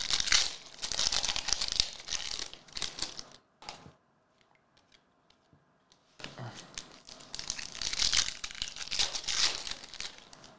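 Foil trading-card pack wrappers being torn open and crinkled by hand, in two bouts of dense crackling with a quiet pause of about two seconds between them.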